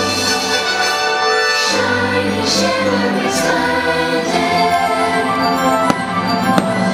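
Orchestral show music with a choir singing, with two sharp firework bangs near the end.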